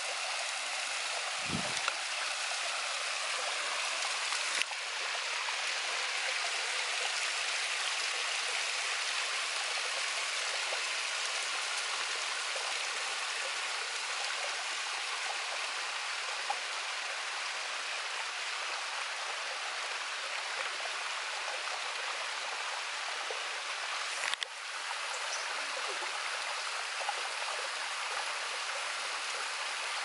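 Small waterfall trickling and spilling down a rock face into a pool, an even, steady hiss of falling water. A soft low thump comes about a second and a half in, and there are two brief clicks, one after about five seconds and one near the end.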